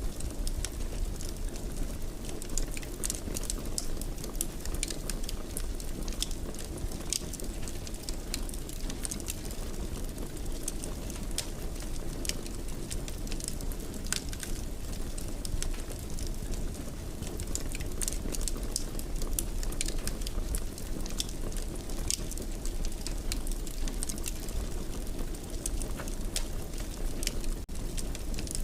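Wood fire burning in a fireplace: a steady low rumble of flames with irregular crackles and snaps scattered throughout.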